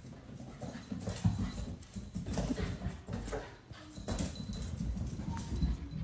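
Two cats galloping and scrambling across a wooden floor: a quick, irregular patter of paws with soft thumps.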